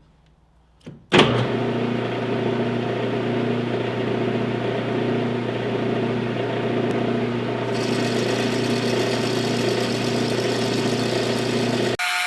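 Metal-turning lathe switching on about a second in and running steadily while brass bar stock is turned down in diameter; a higher hiss joins about two-thirds of the way through.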